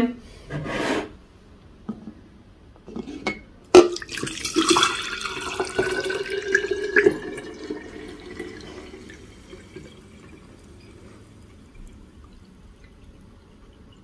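Bay leaf water poured from a tilted glass jar through a plastic funnel strainer into a glass jar: a sharp knock about four seconds in, then a trickling pour with a faint rising tone that tapers off over several seconds.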